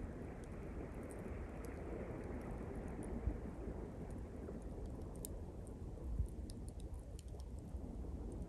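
Small pine-twig campfire crackling, with many sharp little snaps and pops, over the wash of sea waves; one wave rushes in at the start and draws back over the next few seconds.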